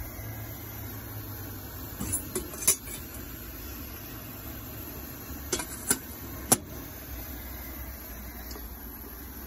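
Steady hiss of a Coleman dual fuel camp stove burner heating a stainless steel percolator whose water is not yet perking. Sharp metal clinks come about two seconds in and again about six seconds in, as the percolator lid is taken off and put back.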